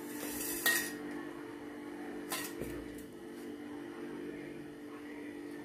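Kitchen bowls being handled on a counter: a brief rustle at the start and a few light knocks, the clearest about two seconds in, as flour is tipped from a plastic bowl into a steel bowl. Under it runs a faint steady hum of several low tones.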